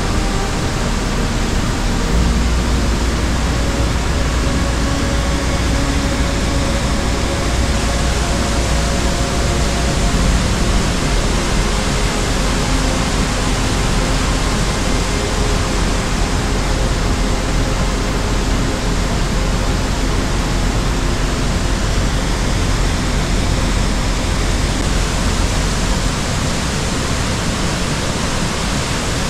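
Steady, loud rushing noise with a deep rumble underneath that drops away near the end.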